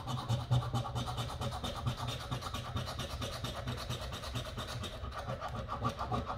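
A coin scraping over a scratch-off lottery ticket in rapid, even back-and-forth strokes, rubbing off the coating over the winning numbers.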